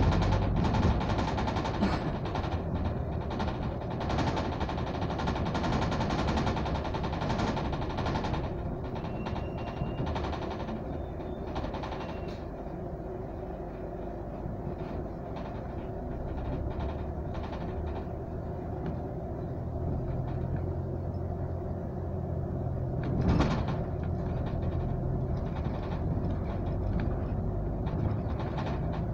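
Inside a moving bus: the engine and road noise make a steady low rumble, with frequent rattles and knocks from the bodywork, busiest in the first eight seconds, and one louder knock about 23 seconds in.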